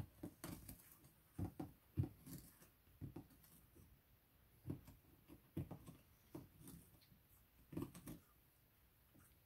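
Faint, irregular soft thumps and scuffs from a kitten moving and pawing inside a cardboard box, about a dozen scattered through, the loudest about two seconds in.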